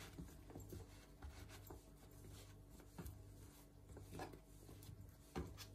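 Faint rubbing and a few soft taps of hands shifting thin raw eggplant slices on a wooden cutting board, over a low steady hum.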